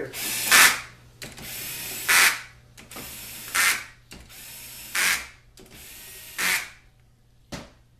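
Cordless drill-driver running down the five bolts of a 4L60-E transmission pump one after another. Each bolt gets a steady spin followed by a short, loud rattling burst as the driver's clutch slips at the seated bolt, five bursts in all about a second and a half apart. The driver only snugs the bolts and does not torque them.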